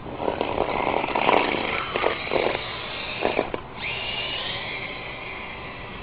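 Toy remote-control Jeep's small electric drive motor whining. Its pitch drops and cuts out about three and a half seconds in, then rises again as the throttle comes back. Through the first half there are rough scraping bursts as the plow blade pushes snow.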